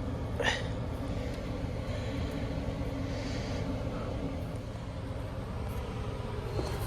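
1997 Carrier LP furnace running: a steady low rumble of its blower and burners, with a single short click about half a second in.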